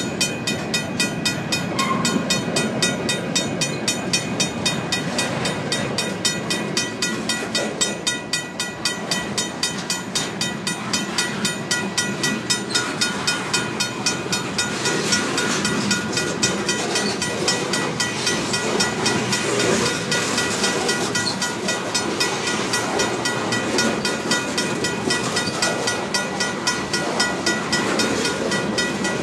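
RACO mechanical crossing bell ringing with rapid, even strokes, over the steady rumble of a freight train's covered hopper cars rolling past on the rails.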